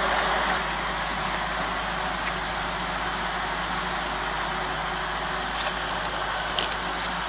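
Heavy forestry machine's engine running steadily, with a few short sharp clicks or knocks in the second half.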